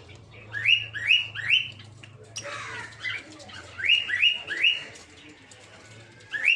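Peach-faced lovebirds calling: two quick runs of three or four sharp, rising chirps, with a harsher, falling screech between them.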